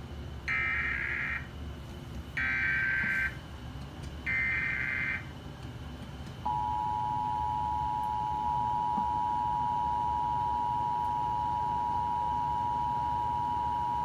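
Emergency Alert System tones from a TV speaker during a Required Monthly Test: three short warbling SAME header data bursts about a second apart, then the steady two-tone attention signal that starts about six seconds in and holds to the end.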